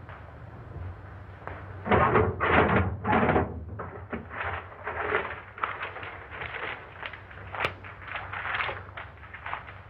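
Handling noises: a loud, noisy rustling and bumping for about a second and a half near the start, then a run of short rustles and taps as papers and objects are moved.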